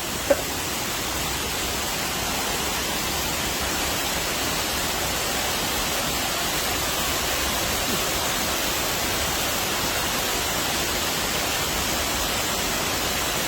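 Waterfall's water falling into the pool below, a steady rushing noise that does not change.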